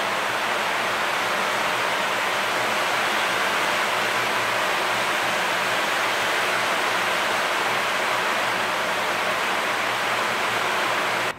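Heavy rain falling: a steady, even hiss.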